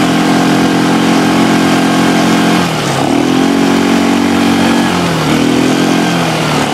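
Kazuma ATV engine running under way on a dirt track. Its note falls and climbs back a few times as the rider varies the throttle.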